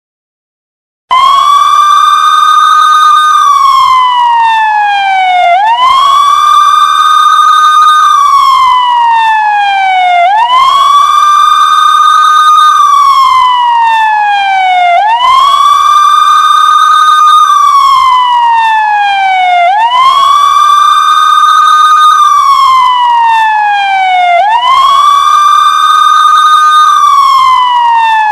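Indian police siren wailing in a slow, even cycle: each cycle rises quickly to a high note, holds it for about two seconds, then glides slowly down before rising again, about six times over. It starts abruptly about a second in.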